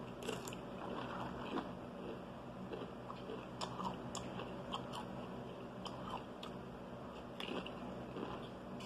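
A person eating close to the microphone: chewing and biting food, with frequent short, crisp crunches throughout.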